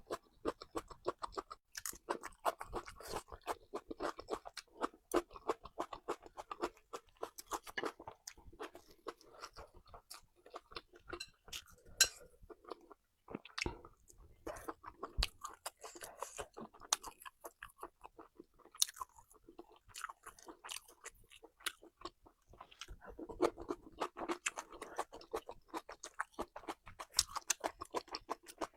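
Close-up eating sounds of a person chewing food, with many quick crunches and mouth clicks and a few louder single bites.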